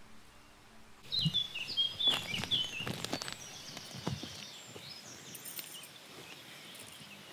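Birds singing in quick chirping phrases by a small river, starting abruptly about a second in, with a few sharp clicks among the first phrases, then thinning out over a faint steady hiss.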